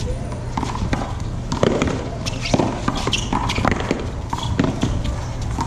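A paddleball rally: a string of sharp knocks as paddles strike the ball and the ball hits the wall and the concrete court, over a steady low rumble.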